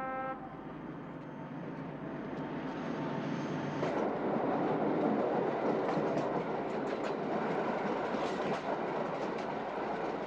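Passing train: the rumble and rush of the wheels, with rail clicks, growing louder about four seconds in. A horn blast cuts off right at the start.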